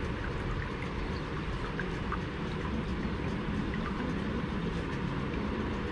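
Steady background noise with a low rumble and a few faint, scattered ticks.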